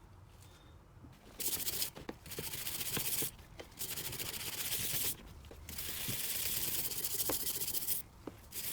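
Grime being scrubbed by hand off a Bahco 114 pipe wrench, in rasping strokes about a second or two long with short pauses between them and a few light knocks of the tool.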